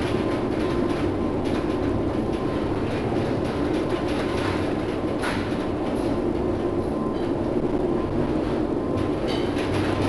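Steady rumbling noise inside a container ship's bridge in a storm, with a few faint knocks: the ship's engine and hull vibration mixed with wind and heavy sea.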